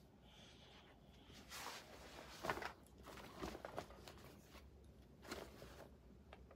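Faint rustling and handling of clothes and a black fabric bag, in short bursts, with a sharper knock about two and a half seconds in.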